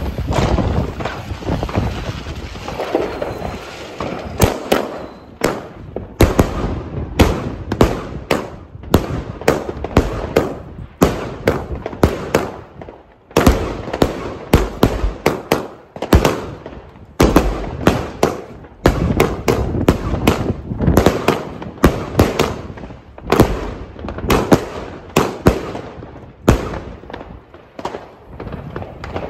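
Star Trade F4 salute battery firing shot after shot: a long series of sharp bangs, one or two a second, with short irregular gaps.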